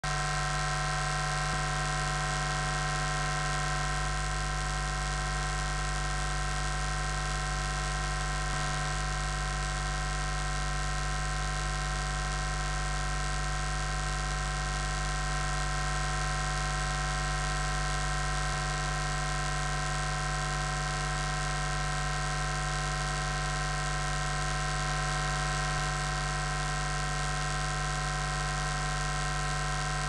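Steady electrical hiss with a constant hum made of several fixed tones, the noise floor of the recording chain.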